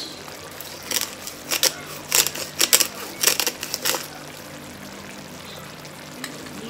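A quick, uneven run of about a dozen sharp clicks and taps between one and four seconds in, over the faint steady sizzle of a sauce cooking in the pan while seasoning goes in.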